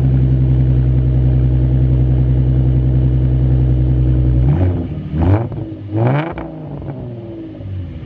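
Ford Mustang engine heard through its dual exhaust, idling steadily just after starting. About four and a half seconds in, it is revved twice, each rev rising and falling, then it settles back to a quieter idle.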